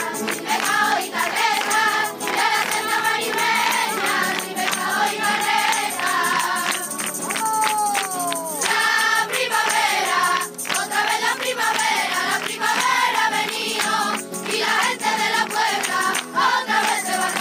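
A group of children singing together, with a hand tambourine jingling and hands clapping along to the song.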